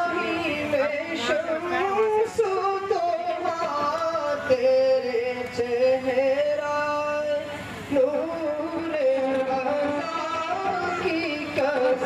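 A man's solo voice singing a naat, an Urdu devotional poem in praise of the Prophet, in long held notes with melodic ornaments that glide up and down, broken by brief pauses for breath.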